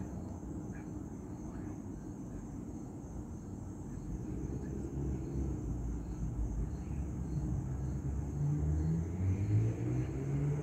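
Low engine rumble from a passing motor vehicle or aircraft. It grows louder through the second half, and an engine tone rises slightly near the end.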